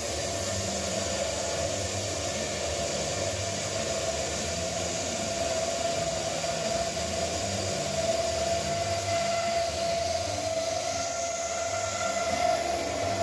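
RMT S-FAB CM 30-31 column bandsaw cutting through 27-inch ductile iron pipe: a steady machine noise with a constant whine over a hiss from the blade working through the wall.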